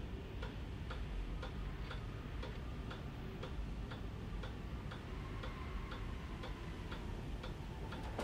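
Clock ticking steadily, about two ticks a second, over a low steady hum.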